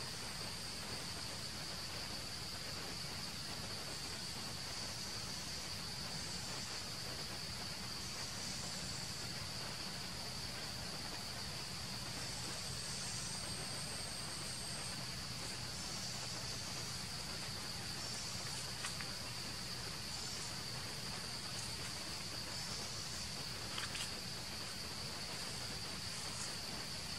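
Steady high-pitched drone of insects such as crickets or cicadas, with a few faint clicks in the second half.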